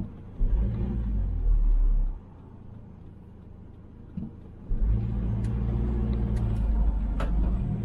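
A car driving, heard from inside the cabin: a low engine drone with a deep rumble that swells twice, from about half a second to two seconds in, and again from about five seconds in.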